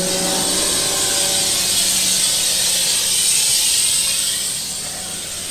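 Compressed air hissing steadily out of the tyre pressure control system as the tractor-and-tanker tyres are let down to lower pressure for a wider footprint in the field. The hiss eases off near the end, over a faint steady low hum.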